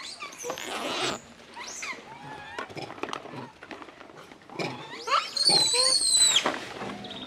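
Macaque screams: a noisy, wavering squeal in the first second, a few short squeaky calls, then a louder high-pitched squeal about five seconds in that lasts around a second and a half.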